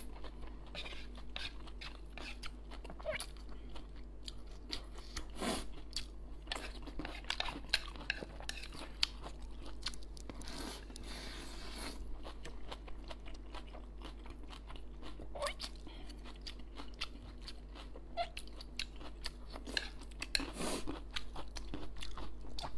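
Close-miked eating of stir-fried wide noodles: steady wet chewing with many small mouth clicks and smacks, and a longer slurp of noodles being drawn in about ten seconds in. A steady low hum runs underneath.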